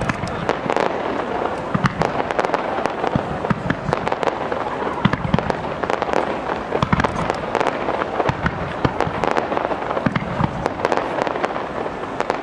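Fireworks display: shells bursting in a fast, irregular stream of bangs and crackles, one after another without a pause.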